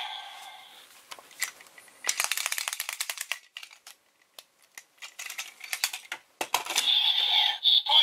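Kamen Rider Build Full Bottle toys shaken, a rapid plastic rattle for about a second and a half, then a few separate clicks as the bottles are handled and fitted. About six and a half seconds in, the DX Pandora Panel's electronic sound effects start up.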